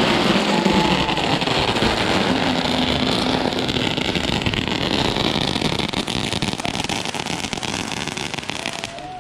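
Wind rushing over the microphone together with road and tyre noise from a Dualtron Thunder electric scooter riding at speed. The noise eases off a little over the last few seconds.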